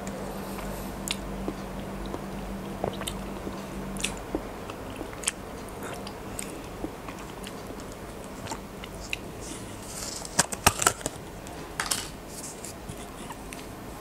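Close-miked mouth sounds of eating soft Thai desserts: wet chewing, lip smacks and small sharp clicks. About ten seconds in comes a cluster of louder clicks and taps as a plastic dessert cup is handled.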